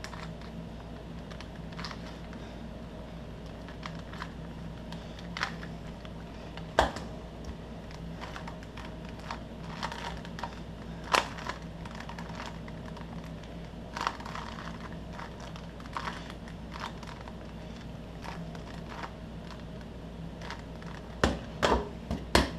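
Plastic twisty-puzzle cubes being turned and handled: irregular small clicks of the layers, with a few louder knocks, about seven seconds in, eleven seconds in, and a cluster near the end, as cubes are knocked or set down. A steady low hum runs underneath.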